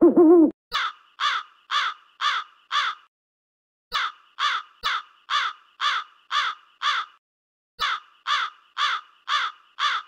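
An owl's hooting call ends about half a second in. A crow then caws in three runs of five to seven caws, about two a second, with short pauses between the runs.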